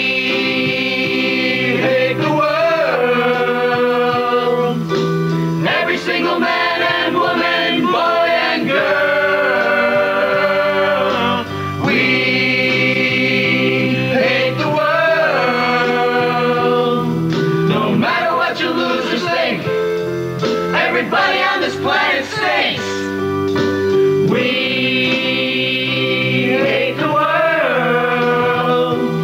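A group of men and women singing together in chorus over backing music, in long held sung phrases.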